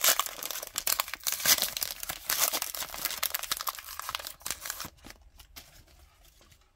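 Plastic trading-card pack wrapper being torn open and crinkled by hand, a dense crackle that dies away about five seconds in to faint handling of the cards.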